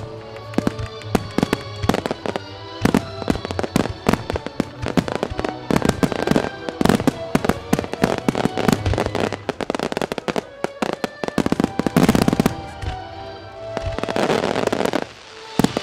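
Starmine fireworks display: rapid volleys of shell bursts and launch bangs, several a second, with music playing underneath. About a second before the end, a dense rush of crackling noise swells and stops abruptly.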